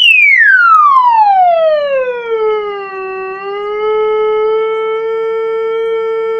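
Sine test tone from an online tone generator played through a 5-inch subwoofer, sweeping steadily down in pitch from a high whistle, dipping just below and then settling into a steady tone at about 445 Hz about three seconds in.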